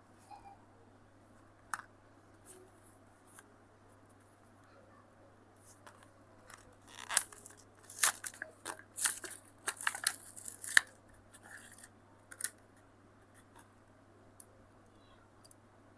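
Scissors snipping and cardboard-and-plastic blister packaging being torn open: scattered sharp clicks and short rasps, busiest from about seven to eleven seconds in, over a faint steady hum.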